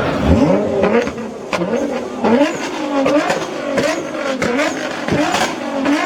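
Car engine being revved in repeated quick blips, each a short rise and fall in pitch, with sharp exhaust pops and crackles between them.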